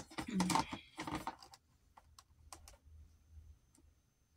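Light clicking and rattling of plastic makeup cases and packaging being handled: a busy cluster in the first second and a half, then a few scattered single clicks.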